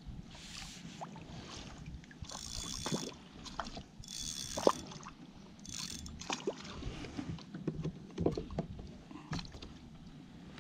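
Handling noise from an angler fighting a bass with a spinning rod and reel in a sit-on kayak: scattered knocks and clicks against the hull and tackle, with three short hissy bursts in the first half.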